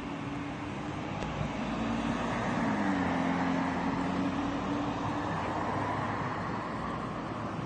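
Road traffic noise: a steady hum of vehicle engines and tyres that swells slightly about three seconds in, with a low engine tone that shifts in pitch.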